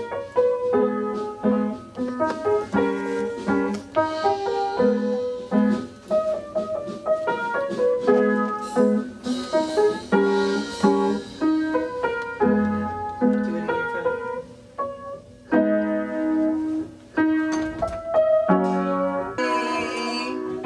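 Piano playing a tune of chords and single notes at a steady pace, starting abruptly. Near the end a different, wavering instrument sound takes over.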